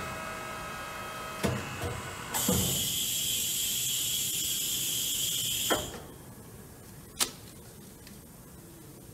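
Hannan vacuum forming machine cycling: metal clanks from the frame, then a loud hiss of rushing air for about three seconds as the vacuum pulls the heated plastic sheet down over the mold. The hiss cuts off with a click, and another sharp click follows a second or so later.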